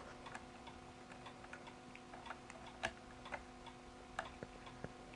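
Faint, irregular small clicks and taps of a USB cable being handled and plugged into a camera rig, over a steady faint hum.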